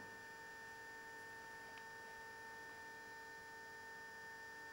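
Near silence: a faint steady electrical hum over a low hiss.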